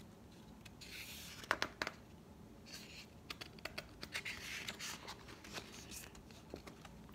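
Quiet paper rustling as a large picture book's page is handled and turned by hand, with a few small clicks and taps from fingers on the paper and book.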